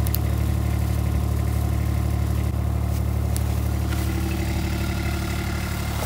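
Kubota 4x4 utility vehicle's engine running at a steady speed.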